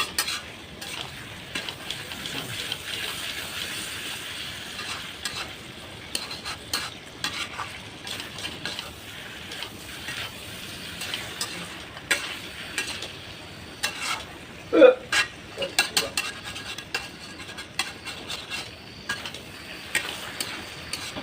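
Chicken curry sizzling in a pan as it is stirred, with a metal spoon scraping and clinking against the pan over a steady frying hiss. A louder, brief sound comes about fifteen seconds in.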